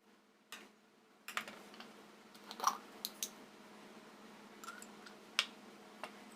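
A series of sharp, light clicks and knocks, about eight spread unevenly over several seconds, with a faint steady hum underneath.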